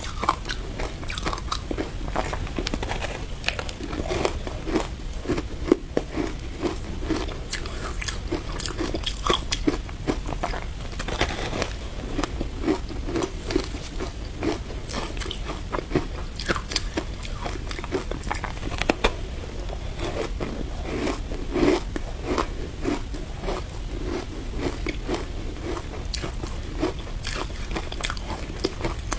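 Frozen matcha shaved ice being bitten and chewed: a steady run of crisp, icy crunches, many to the second, with a few sharper, louder bites scattered through.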